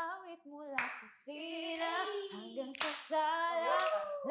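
Women singing a melody, with a few hand claps.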